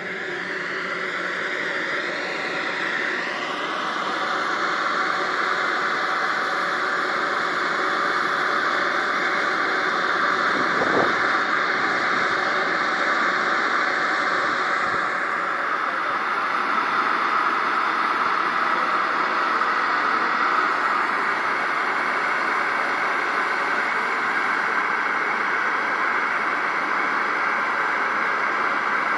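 Model jet turbine engine running: a rushing roar with a thin high whistle that builds over the first few seconds as the turbine spools up, then holds steady.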